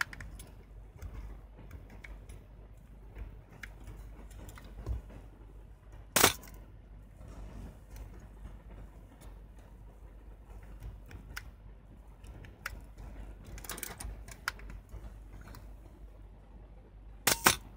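Canon F-1N 35mm SLR camera handled with its back open: small ticks and rattles, a sharp mechanical click about six seconds in, a few lighter clicks later, and a louder double click near the end.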